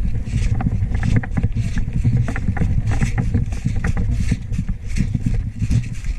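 Heavy low rumble on the head-mounted camera's microphone, with many irregular sharp clicks and rustles through it.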